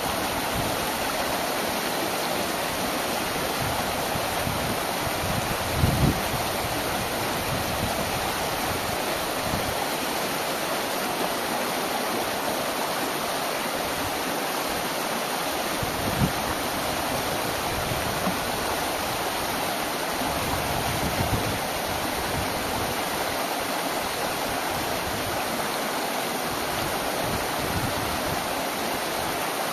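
Shallow mountain stream rushing steadily over rock, with a few brief low thumps about six seconds in, again around sixteen seconds and near twenty-one seconds.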